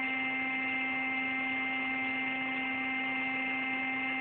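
Electric air pump running with a steady hum, inflating an airbed that is nearly but not yet firm.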